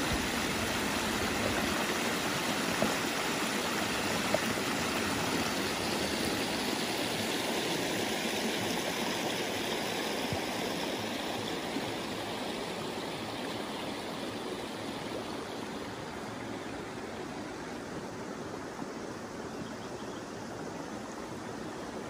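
Shallow creek running over flat rocks in small cascades: a steady splashing rush of water that gets somewhat quieter through the second half.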